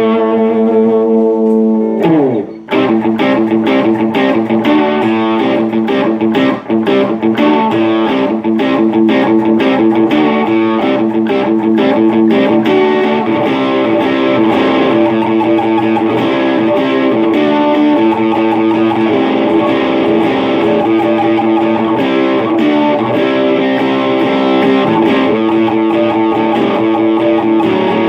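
Electric guitar distorted by a Boss DS-1 pedal through an amp, set for a classic rock tone. A held chord, a quick slide down in pitch about two seconds in, then a long run of fast picked notes.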